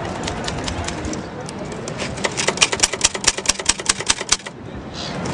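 Typewriter keys striking the paper in clattering runs of sharp clicks, with a fast burst of keystrokes in the middle and a brief pause near the end.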